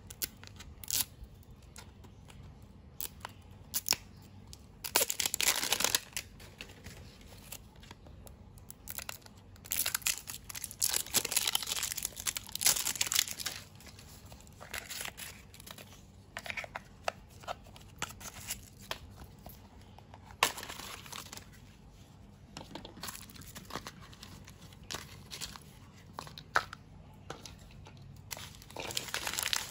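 Plastic packaging of an L.O.L. Surprise! Boys doll's blind-ball accessories being torn open and crinkled by hand. It comes in bursts of rustling, the longest about ten seconds in, with light clicks and handling noises between.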